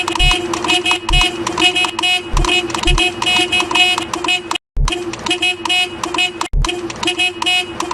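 Bus 'telolet' musical horn sounding in rapid, repeated toots, with occasional low thumps. The sound is cut off abruptly twice, about halfway through and again later.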